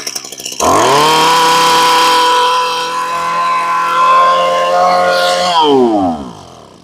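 A 26 cc two-stroke brush cutter engine on a test run: it idles, the throttle is snapped open about half a second in and it runs at a steady high rev for about five seconds. Then the revs fall away and the engine stops near the end. The seller calls its throttle response very quick.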